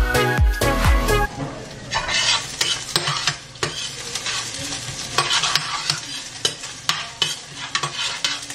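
Something frying in a stainless steel pan, stirred and scraped with a spatula: a steady sizzle broken by irregular scrapes and taps. Electronic dance music with a beat stops about a second in.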